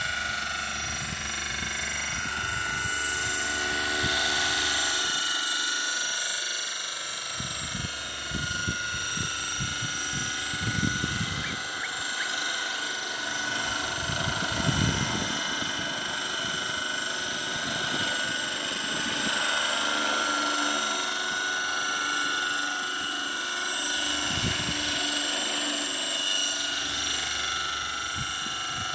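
Radio-controlled scale model of a Boeing Vertol 234 tandem-rotor helicopter in flight: a steady high whine from its drive and twin rotors. Wind rumbles on the microphone now and then.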